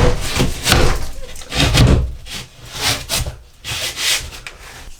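Irregular series of rough scraping and rubbing strokes against wood, like sanding or rasping, made while working on a piece that will not fit.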